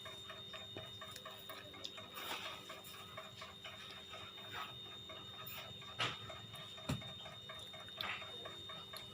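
Faint, even ticking, with a couple of sharper clicks about six and seven seconds in.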